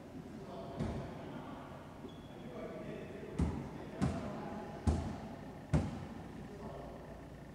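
A wallyball being hit and rebounding off the court walls: five sharp smacks that echo in the enclosed court, one about a second in and then four in quick succession about a second apart.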